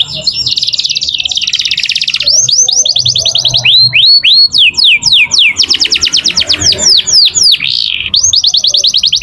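A domestic canary in full song, the loud rolling song that its keepers call 'ngerek'. Long runs of very fast repeated notes alternate with series of quick falling whistled notes.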